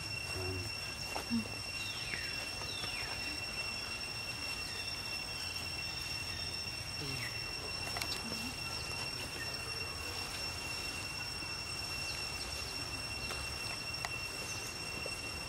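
Outdoor ambience dominated by a steady, high-pitched insect drone held on one pitch over a low rumble, with a few faint, short descending chirps.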